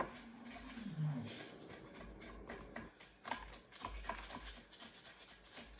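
Plastic knife scraping the outside of a raw carrot: a run of short, irregular scratchy strokes. A brief low voice-like sound dips in pitch about a second in.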